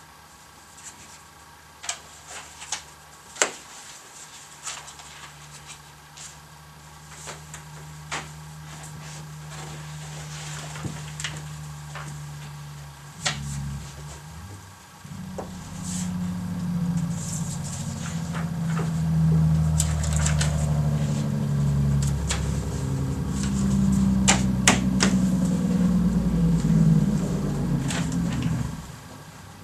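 Scattered clicks and knocks of papers and pens being handled on a table, then from about halfway a loud low rumble that builds and cuts off suddenly near the end.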